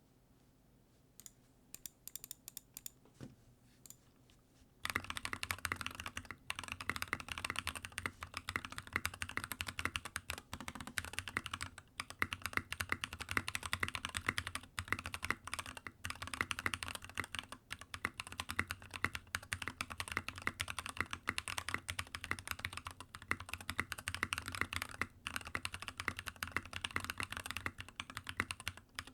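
Typing on an NK65 Entry Edition mechanical keyboard with lubed Durock POM T1 67g tactile switches, Cherry plate-mount stabilizers and Alpha KAT blank keycaps. A few separate keystrokes come first, then steady fast typing starts about five seconds in.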